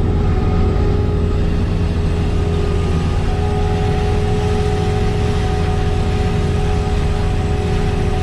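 Heavy farm machinery running steadily: a deep diesel engine drone with a constant whine over it. A second, higher whine comes in about three seconds in.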